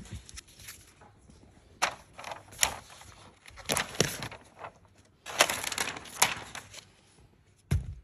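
Paper wrapping and the cardboard tray of a MacBook Pro box being handled: bursts of crinkling paper, loudest around four and five-and-a-half seconds in, with several sharp taps and knocks of cardboard, one near two seconds in and one near the end.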